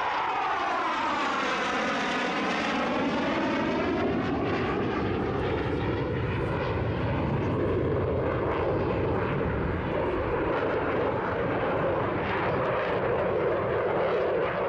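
F-16 fighter jet's engine heard as it flies past: jet noise whose pitch sweeps downward over the first few seconds, then settles into a steady roar.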